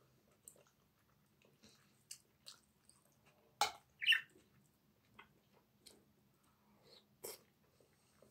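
Close-up eating sounds: chewing and small mouth noises, with a metal fork clicking and scraping against a stainless steel frying pan every second or so. The loudest sounds are two sharp clicks a little past three and a half seconds in and about four seconds in.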